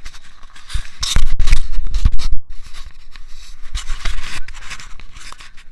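Scraping, rubbing handling noise on a camera's built-in microphone carried by a running person, with wind buffeting the microphone. Loudest from about one to two and a half seconds in, then lighter scratching that eases off near the end.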